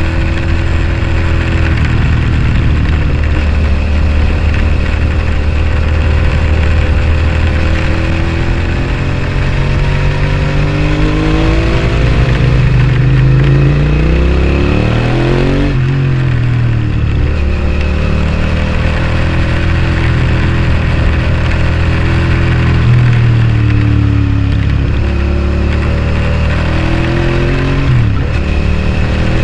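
Suzuki SV650S's 645 cc V-twin through a Scorpion slip-on exhaust, riding: the revs climb under throttle and drop sharply twice, about halfway through and near the end.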